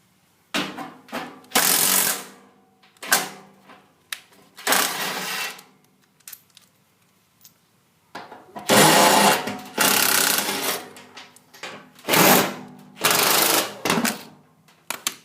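Power drill run in a series of short bursts, about seven, some brief and two lasting a couple of seconds, working on the fasteners of a variable speed blower motor.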